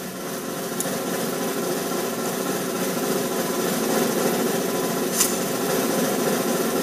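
Snare drum roll, a continuous rattle slowly building in loudness, with a short sharp click about five seconds in.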